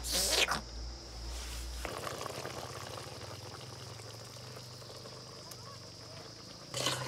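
A pot of chicken cooking over an open wood fire: a faint, steady hiss with light crackles and ticks.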